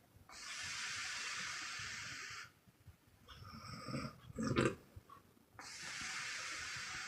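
A sleeping woman snoring with loud puffing exhales: two long airy puffs of about two seconds each. Between them comes a short, low rattling snore.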